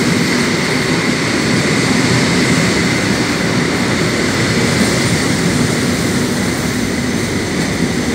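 Commuter train moving along an underground platform: a steady, loud rumble and rush of noise with a faint steady high whine.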